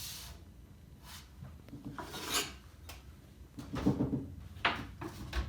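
A cabinet shelf grid being slid along the wooden cabinet wall and pushed into place against the setback tool: rubbing and scraping, with a few knocks toward the end.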